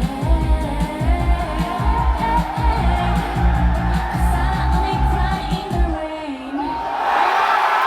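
Closing bars of a K-pop song: a woman singing over a steady beat. The beat stops about six seconds in, the voice slides down on a last note, and the crowd starts cheering near the end.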